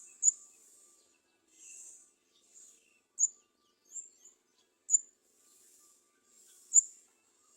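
Garden sunbirds calling at the nest: a series of short, sharp, very high chirps about a second apart, with softer hissing bursts between them.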